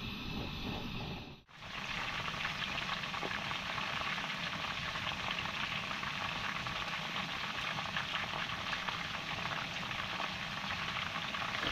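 Chicken pieces frying in oil in a wide metal pan, a steady dense sizzle full of fine crackles. In the first second and a half there is a lower rushing noise instead, which stops with a brief drop.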